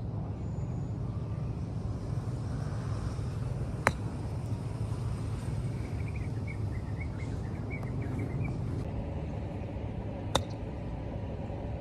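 Golf club striking a ball off grass twice, two sharp clicks about six and a half seconds apart, over a steady low background rumble. A bird chirps briefly between the two shots.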